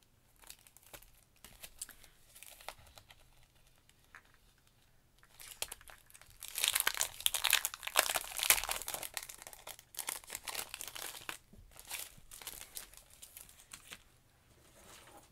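Clear plastic packaging of a craft stencil crinkling as it is handled and pulled open, loudest for a few seconds in the middle, with light rustles and taps before and after.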